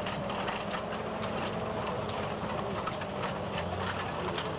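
Engine of a WWII-era military truck running steadily as it moves slowly over grass towing a field gun, with irregular clicks and clatter over a continuous low hum.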